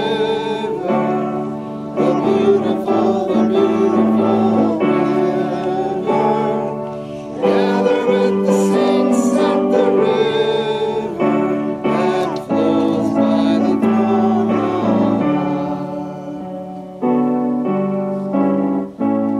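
Music during worship: a voice singing over keyboard accompaniment, with held notes and chords.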